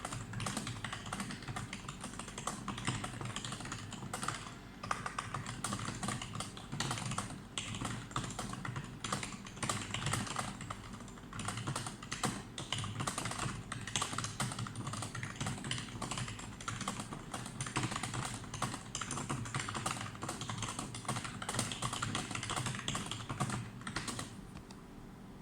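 Fast, continuous typing on a computer keyboard: a dense run of key clicks that stops shortly before the end.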